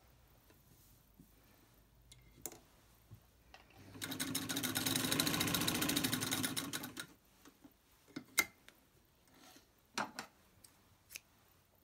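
Vintage Singer 66K sewing machine stitching a seam through denim for about three seconds, picking up speed and then running down to a stop. A few sharp clicks follow.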